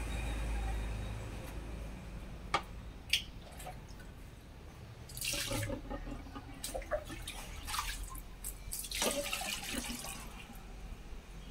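Water being scooped and poured from a plastic mug over stainless-steel utensils, splashing twice, with a couple of sharp clinks of steel vessels a few seconds in.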